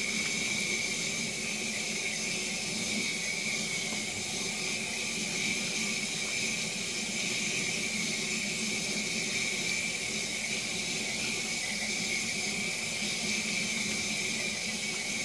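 Kitchen faucet running steadily into a stainless steel sink, the stream splashing over a kitten as the soap is rinsed off.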